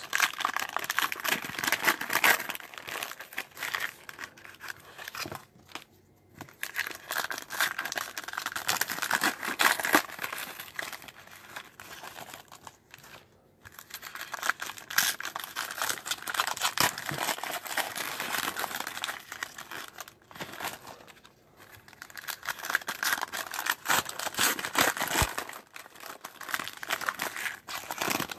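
Foil trading card pack wrappers being torn open and crinkled by gloved hands: a near-continuous crackling rustle with a couple of brief pauses.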